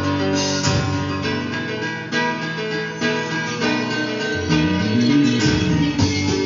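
Guitar music playing from a vinyl single on a Telefunken W215 HiFi record player.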